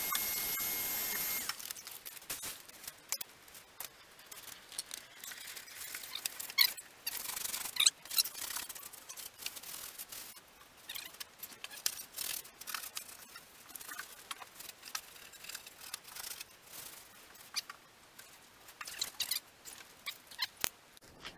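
A canister vacuum cleaner runs with a steady whine and hiss and is switched off about a second and a half in. Then a cloth is rubbed and wiped over the painted steel floor pan of a Citroen 2CV, with scrapes, squeaks and occasional light knocks.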